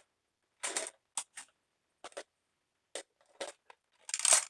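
Plastic toys being handled and rummaged out of a cardboard box: several short bursts of rustling and clatter, loudest near the end.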